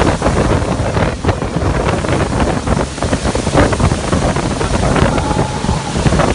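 Wind buffeting the microphone over the rush of breaking whitewater and spray from a wave-pool wave, a loud, continuous noise that swells and dips.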